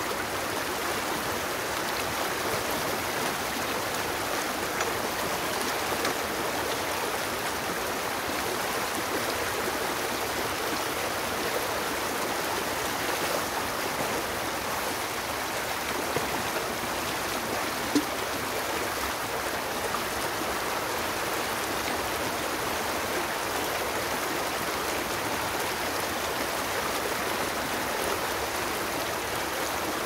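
Small rocky stream rushing steadily over boulders and little cascades, a constant loud hiss of water. One brief click about two-thirds of the way through.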